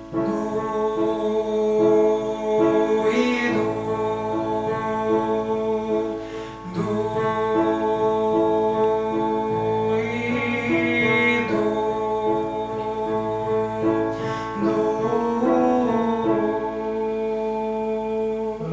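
A vocal student singing long held notes over instrumental accompaniment whose chords pulse about twice a second.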